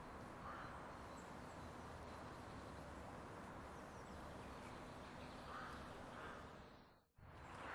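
Faint outdoor background noise with a few faint, short bird calls; the sound drops out briefly near the end.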